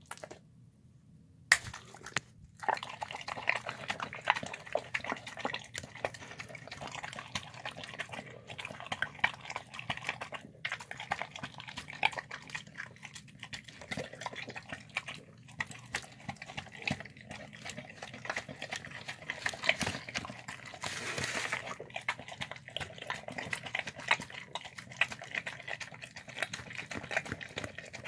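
A dog eating wet, mushy slop of chicken, rice, fruit, vegetables and lentils from a plastic tub: a busy run of wet lapping, smacking and chewing. It starts after a sharp click about a second and a half in.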